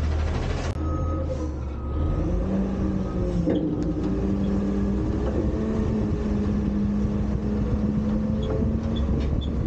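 Front-load garbage truck's diesel engine running, revving up about two seconds in and holding a steady higher pitch with hydraulic whine, as it drives the truck's hydraulics, with a few metallic knocks.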